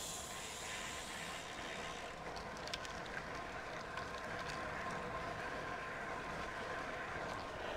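Road bike rolling along tarmac: steady tyre and wind noise picked up by a handlebar-mounted action camera, with a faint steady whine.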